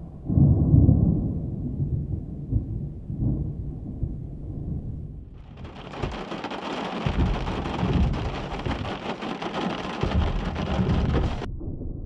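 Thunder rolling in a long low rumble. About five seconds in, heavy rain joins over the rumble, then cuts off suddenly near the end.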